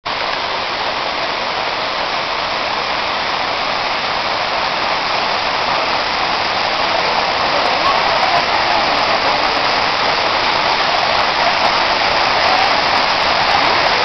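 Waterfall pouring in several streams down a rock face: a steady loud rush of falling water that grows slowly louder.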